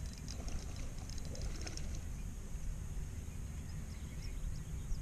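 Low wind rumble on the microphone, with faint scattered clicks from a spinning reel as a hooked bass is played in.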